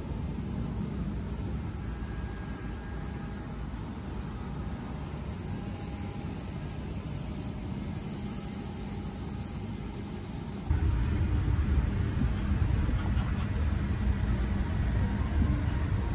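Steady airport ambience: a low rumble with a faint high hiss. About two-thirds through it cuts suddenly to a louder, deeper steady rumble of an airliner cabin, its air system running during boarding.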